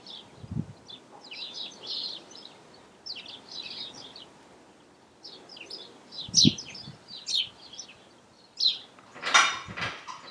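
Small birds chirping repeatedly in short high-pitched phrases, with two dull thuds. Near the end a quick run of sharp knocks.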